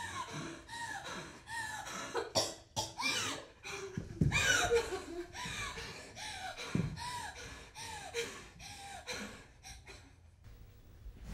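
A woman coughing and gasping for breath, a run of short strained vocal sounds that dies away near the end.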